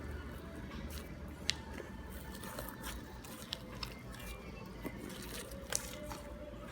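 Slime being kneaded and stretched by hand: soft squishing with scattered small clicks and pops.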